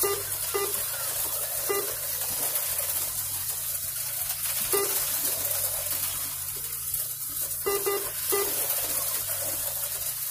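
HO-scale slot cars racing, their tiny electric motors and pickup shoes on the metal rails making a continuous high whirring hiss. Short beeps sound at uneven intervals through it.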